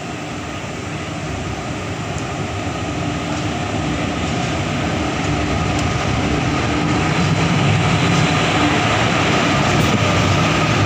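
Indian Railways WAP-4 electric locomotive drawing slowly alongside on the next track, its motors and blowers giving a steady hum with a faint whine that grows steadily louder as it comes close.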